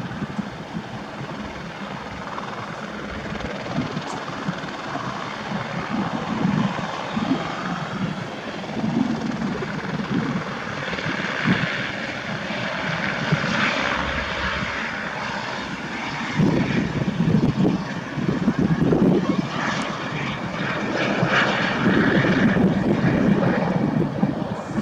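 Helicopter running, a steady rotor and engine noise with a pulsing low throb that grows louder in the later part.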